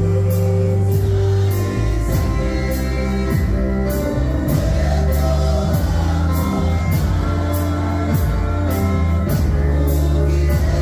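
Live amplified gospel worship music: a lead singer and backing vocalists singing over keyboard, with heavy bass and a steady beat.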